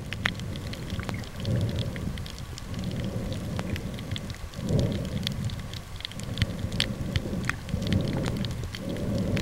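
Underwater sound picked up by a camera in a soft waterproof bag: a steady crackle of sharp clicks, with low rushing surges of water swelling and fading every second or two.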